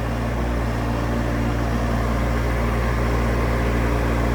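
Diesel engine of a 2.2-tonne mini excavator running steadily.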